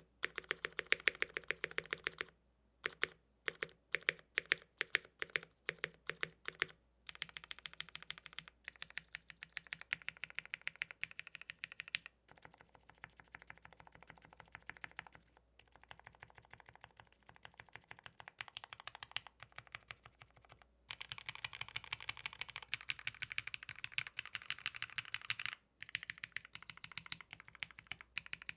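Typing on a MODE Eighty mechanical keyboard with Gateron Black Ink V2 linear switches on a POM plate, tape-modded. Runs of fast keystrokes, with slower separate presses a few seconds in and a louder fast run about three quarters of the way through.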